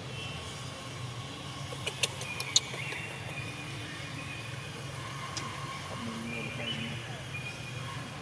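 A steady low engine hum, with a few sharp clicks about two seconds in and faint high chirps over it.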